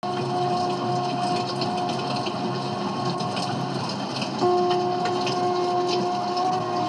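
A cassette tape loop playing back on a Sony Walkman Professional WM-D6C: a held, droning note over a rough, noisy bed with faint crackle. About four and a half seconds in the sound jumps a little louder and the note starts again, stronger.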